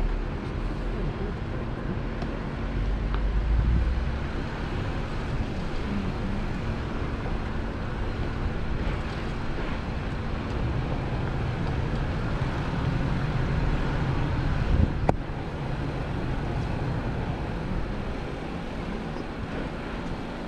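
Vehicle engine and drive noise, a steady low rumble, as it travels a rough trail, with one sharp knock about fifteen seconds in.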